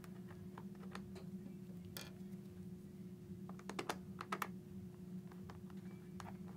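Faint small clicks and taps of fingers taking the factory screws and plastic cover plate off the side of an HJC i90 modular helmet shell, with a quick run of sharper clicks a little past halfway. A low steady hum underneath.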